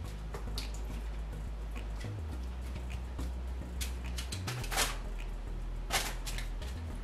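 Light clicks and taps of a silicone basting brush working over cut potato fries on a foil-lined baking sheet, with two louder sharp taps near the end.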